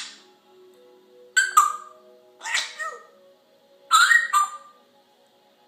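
Pet parrot making a series of short squawky calls, each starting with a sharp hiss, the last one near four seconds in.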